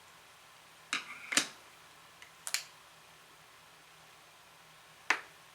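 A few short, sharp clicks and knocks, as of things being handled or set down, over quiet room tone with a faint steady hum.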